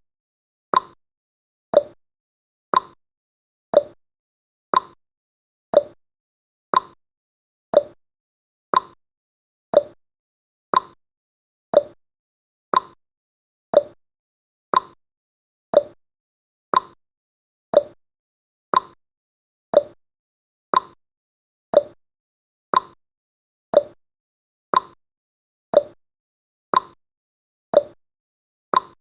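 Clock-ticking sound effect of a countdown timer: a steady tick-tock, one sharp tick a second.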